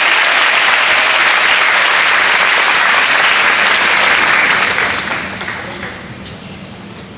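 A large audience clapping, loud and dense at first, then dying away about five seconds in.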